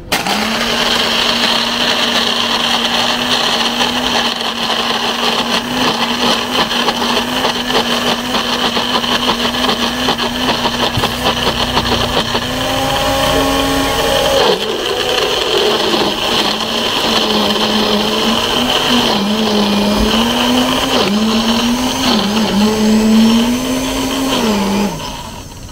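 Electric countertop blender crushing ice and strawberries into a smoothie. The motor starts abruptly and hums steadily, then its pitch wavers up and down through the second half, and it winds down near the end.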